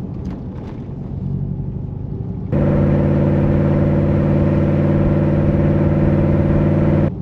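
Dodge Ram 1500's V8 Hemi exhaust, fitted with an Aero Exhaust muffler, running steadily at a low drone; about two and a half seconds in it jumps abruptly to a much louder, steady deep note, which cuts off suddenly near the end.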